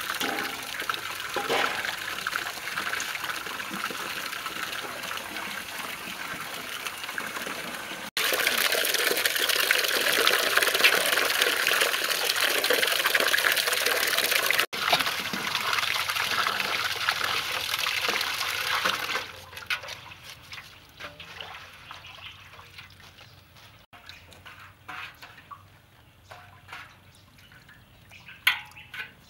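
Water sloshing and splashing in a metal basin as chillies are washed by hand: a steady rush of water for most of the first two-thirds, then quieter, scattered splashes.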